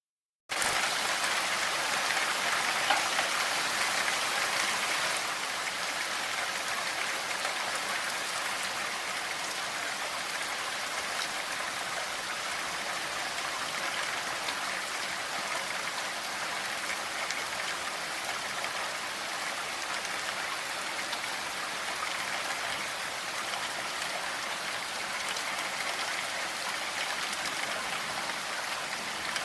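Steady rain falling, an even hiss with no thunder. It starts abruptly about half a second in and is a little louder for the first few seconds.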